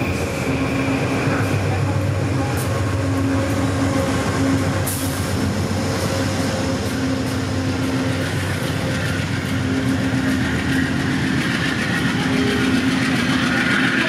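Passenger coaches rolling past, followed by the GE Genesis P40DC diesel locomotive shoving the train from the rear. Its V16 diesel engine runs steadily under power as the train pulls out of the station.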